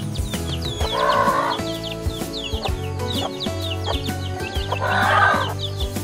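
Baby chicks peeping: a rapid run of short, high cheeps that fall in pitch, with two louder, lower calls, about a second in and about five seconds in. Background music plays under them.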